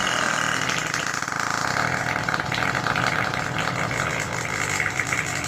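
A long, buzzy fart with a rapid flutter, held for about five seconds and cutting off abruptly at the end.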